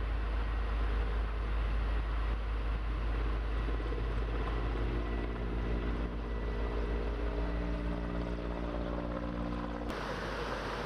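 Steady low engine drone with a fast, even low pulsing, joined about halfway through by a steady humming tone. Near the end the sound cuts abruptly to an even rushing hiss.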